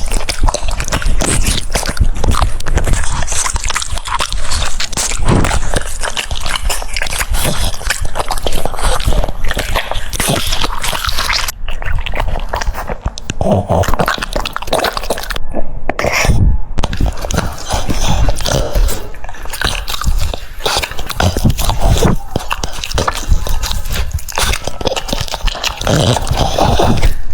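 French Bulldog chewing juicy food, a steady run of wet, crunchy bites and smacking.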